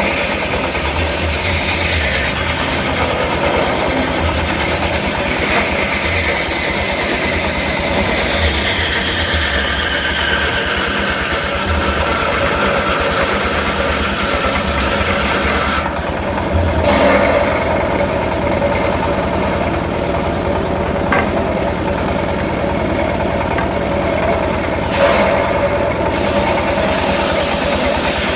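Engine-driven circular sawmill running steadily. For the first half a higher hissing whine over the engine slowly falls in pitch, then cuts off suddenly about halfway, leaving the engine's steady running. The higher sound returns briefly and again near the end.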